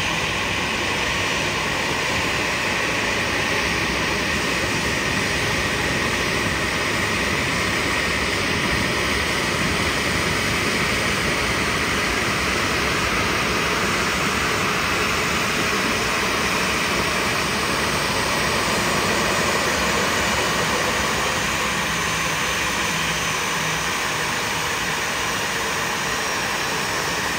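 Aircraft jet turbine running steadily on the ramp: a constant rushing hiss that does not change in level or pitch.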